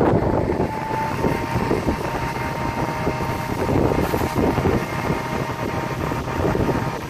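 Tractor engine running steadily, powering the trailed sprayer's pump while the boom sprays, with wind noise on the microphone.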